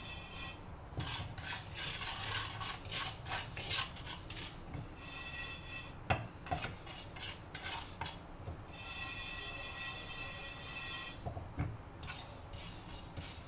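Wooden spatula stirring fenugreek seeds as they dry-roast in a nonstick frying pan: repeated scraping strokes with the seeds rattling against the pan.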